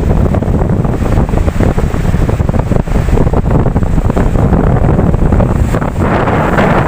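Ocean waves with strong wind buffeting the microphone, giving a heavy, choppy low rumble. About six seconds in, a wave breaks and a broad rushing hiss of surf swells up.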